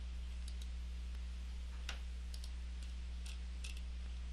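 Faint scattered clicks of a computer mouse being worked, about ten over a few seconds, over a steady low electrical hum.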